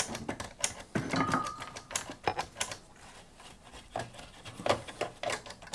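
Rapid, irregular mechanical clicking from the old Hameg HM312-8 oscilloscope's switches being worked during a contact-cleaner clean. The clicks are dense at first and thin out after about three seconds.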